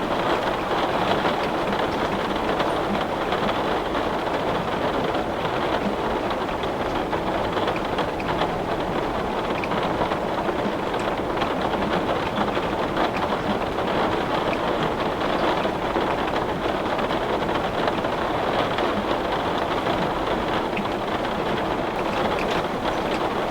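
Heavy rain pouring steadily onto window glass, a dense even patter with scattered small drop ticks.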